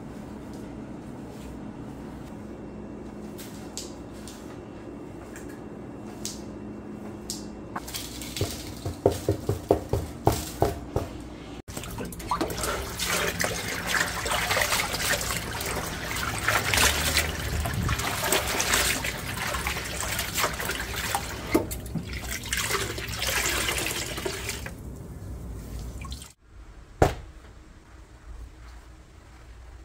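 Tap water running into a plastic basin while a cleaning rag is rubbed and squeezed in it by hand; this is the loudest and longest sound, filling about half the clip. Before it comes a quick run of sharp knocks, and near the end a single knock.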